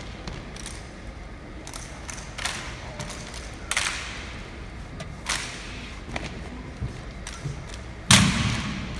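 Exhibition drill team working rifles and marching: several irregular sharp slaps and knocks of hands and rifles, with a heavy thud near the end that echoes through the hall.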